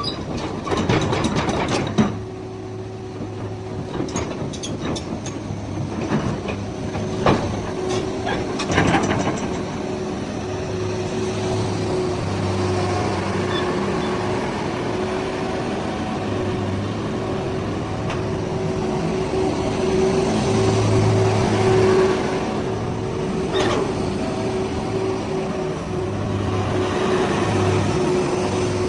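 Komatsu PC220-8 excavator's six-cylinder SAA6D107E-1 diesel engine running steadily, with a held whine over a pulsing low hum. A few sharp knocks or clanks stand out, around two seconds in, twice near the middle of the first third, and once near the three-quarter mark.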